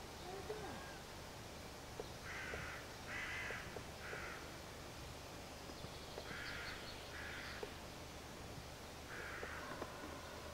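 A crow cawing: harsh calls of about half a second each, three in a row, then two, then two more near the end.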